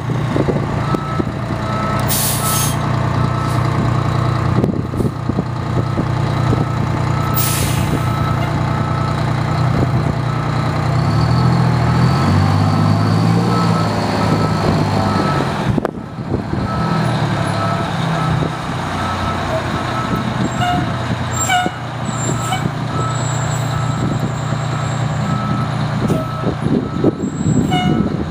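Fire engine's diesel engine running at low speed while it reverses, its backup alarm beeping steadily at an even pace. Two short air hisses from the air brakes come about two seconds in and again about seven seconds in.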